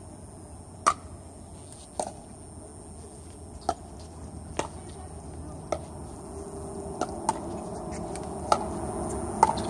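Pickleball rally: about nine sharp pops roughly a second apart as paddles strike the hollow plastic ball and it bounces on the hard court. A low background hum grows louder in the second half.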